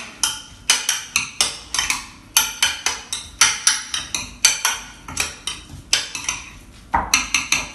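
Metal spoon clinking against a glass bowl while stirring and pressing a coarse salsa verde thickened with mashed boiled potato: quick, irregular clinks, about three or four a second.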